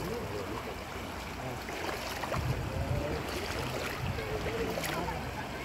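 Shallow river running over stones, a steady rushing noise with a low rumble underneath.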